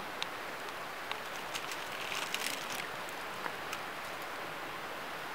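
Light, scattered crackles of dry leaf litter over a steady outdoor hiss, with the crackles bunched together around the middle.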